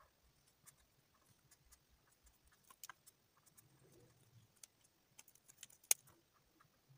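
Felt-tip marker working on paper: faint scattered ticks and scratches as the tip colours in, with one sharp click about six seconds in.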